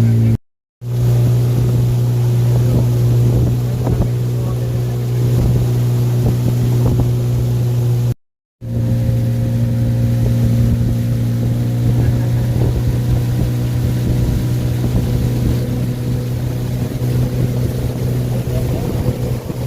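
A small motorboat's engine running steadily at cruising speed, a loud, even drone with water and wind noise. The sound cuts out twice, briefly.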